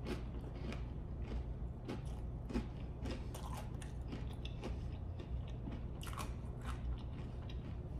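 A person chewing a mouthful of wheat cracker topped with liver pâté and applesauce, close to the microphone: a run of soft, irregular crunches and bites.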